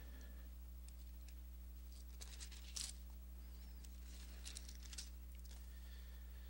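Faint rustles and soft clicks of Bible pages being turned, a few times between about two and five seconds in, over a steady low hum.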